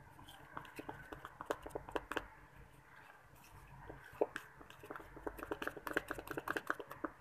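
A utensil tapping and scraping against a bowl while cake batter of flour and cocoa powder is beaten by hand: quick, irregular, faint clicks that grow busier in the second half.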